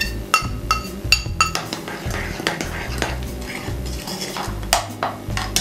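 A spoon clinking and scraping against a bowl, with several ringing taps in the first second and a half and then further clicks and scrapes, as powdered sugar is spooned into Greek yogurt. Faint background music underneath.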